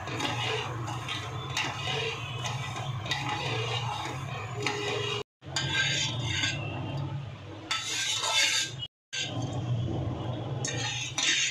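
Metal spoon stirring hot milk in a metal pot, clinking and scraping against the pot's bottom and sides as sugar is dissolved into the milk. A steady low hum runs underneath, and the sound cuts out briefly twice.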